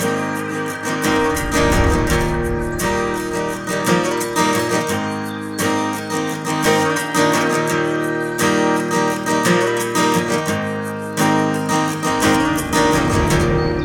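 Background music: strummed acoustic guitar with a steady rhythm, starting to fade near the end.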